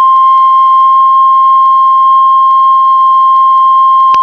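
Heart monitor flatline: one continuous, steady high beep tone that sounds for about four seconds and then cuts off suddenly. This is the alarm a patient monitor gives when no heartbeat is detected.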